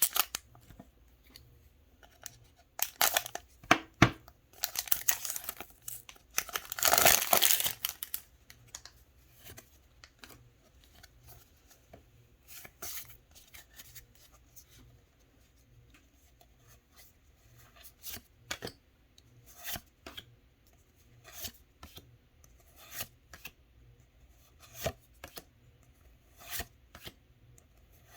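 Foil wrapper of a Pokémon trading-card booster pack being torn open and crinkled, loudest over the first several seconds. Later come soft, short card swishes about every second and a half as the cards are flipped through one by one.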